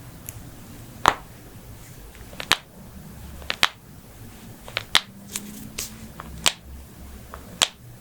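Joints being cracked, giving about a dozen sharp pops at irregular intervals, some in quick pairs. The loudest pop comes about a second in.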